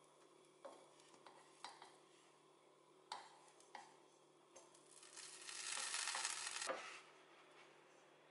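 Wooden spatula knocking lightly against a non-stick frying pan a few times as slices of bread are turned and pressed, then bread frying in the hot pan with a louder hiss for about two seconds past the middle.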